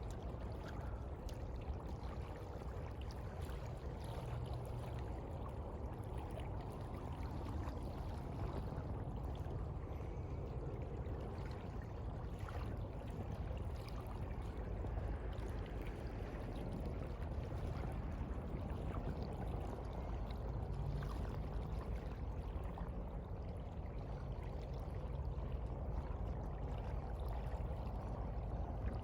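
Sea water washing steadily, an even watery rush without distinct crashing breakers.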